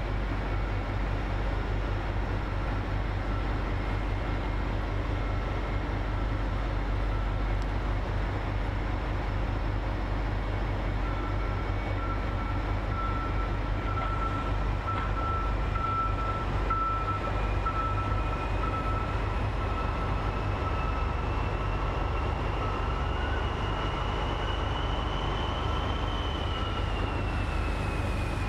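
SNCF BB 67400-class diesel locomotive idling steadily while standing at the head of its train, a low pulsing engine rumble with a high whine over it. The whine slowly rises in pitch over the second half and falls back near the end.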